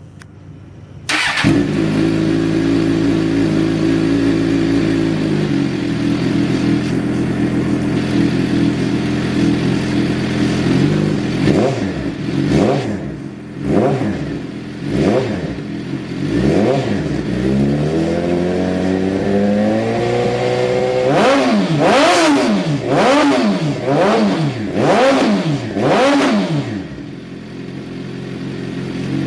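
Motorcycle engine coming in abruptly about a second in and idling, then revved on the throttle: a few single blips, one longer climb in revs, then a quick run of sharp blips before it drops back to idle.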